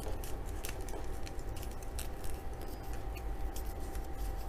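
Light, irregular clicks and taps as the phone stand's parts are handled and locked together, over a steady low hum.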